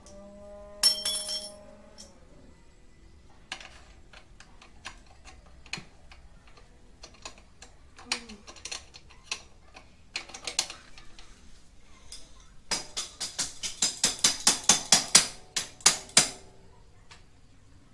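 Hand tools working on a motorcycle's metal parts: scattered metal clicks and clinks, a loud clank that rings briefly about a second in, and a fast run of loud clicks, about six a second, for several seconds near the end.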